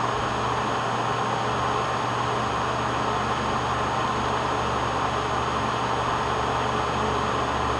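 Electric desk fan running steadily: an even rushing noise with a steady low hum.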